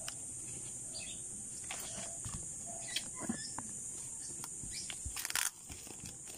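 Clear plastic wrapping around shampoo bottles rustling and crinkling in a few short bursts as it is handled, the loudest about five seconds in, over a steady high-pitched drone of insects.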